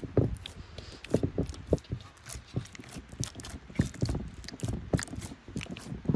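A run of irregular knocks and clicks, several a second, some with a dull thud.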